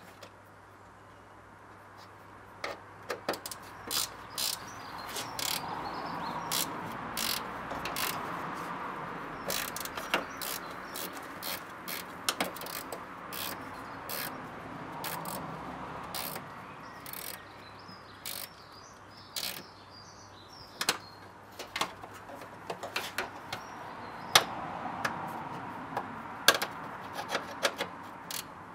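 Ratchet spanner clicking in short, irregular runs as the bolts holding the air-intake ducting inside a Mitsubishi Delica L400's wing are worked loose; one nut is turning on the back with its bolt.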